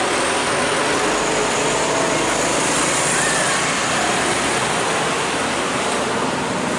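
Steady road traffic noise at close range: a Mitsubishi Fuso flatbed truck's diesel engine running as it rolls slowly past, mixed with motorbikes.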